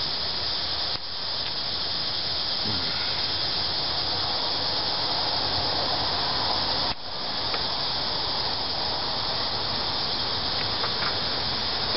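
Steady high-pitched drone of a chorus of insects, broken by two short dips about a second in and about seven seconds in.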